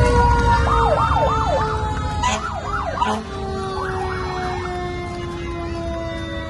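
Fire engine sirens: one long siren tone slowly winding down in pitch, with three short bursts of a fast rising-and-falling yelp over it.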